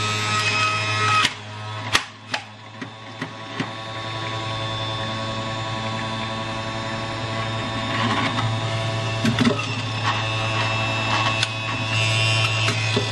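Philips electric juicer's motor running with a steady hum while produce is pushed down its feed chute. About a second in the hum drops, a few sharp clicks and knocks follow, and then the hum builds back up and runs steadily.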